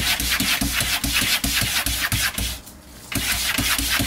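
A cat clawing at the inside panel of a cupboard: rapid rasping scratches, several a second, with a short break a little past halfway.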